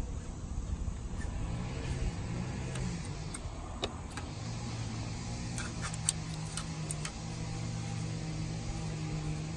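Metal scraper scratching and clicking in short strokes against the engine block's oil pan mounting flange, scraping off old sealant. Under it runs a steady low mechanical hum that comes in about a second and a half in.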